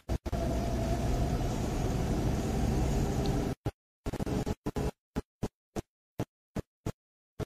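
Steady road and engine noise inside a moving car's cabin; about three and a half seconds in, the sound breaks up into brief stuttering fragments separated by dead silence, a recording dropout.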